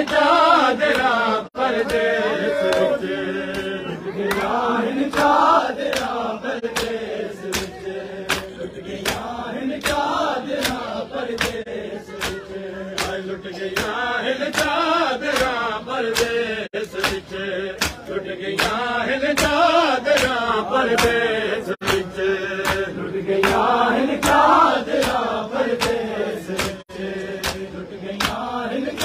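A group of men chanting a noha in unison. Sharp slaps of hands on bare chests (matam) keep time, about two a second.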